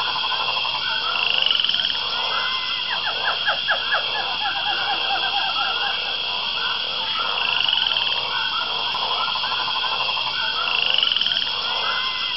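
Jungle ambience recording of frogs croaking and trilling in a dense chorus, over a steady high drone, with a short rising call that recurs every few seconds.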